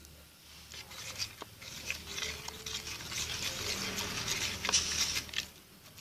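Slime of clear glue, soap and activator being stirred in a container: wet, sticky crackling with light clicks and scraping, growing louder after the first couple of seconds.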